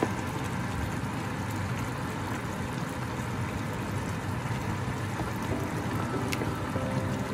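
Ground beef and diced vegetables simmering and sizzling in a stainless steel wok, a steady hiss and bubble while a wooden spatula stirs through them, with one sharp knock about six seconds in.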